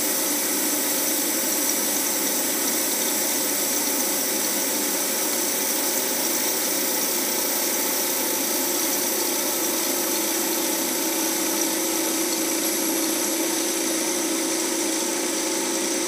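Refrigerant recovery machine running steadily with an even motor and compressor hum, pulling freon out of a refrigerator's sealed system into the recovery tank as the low side is drawn down toward zero pressure.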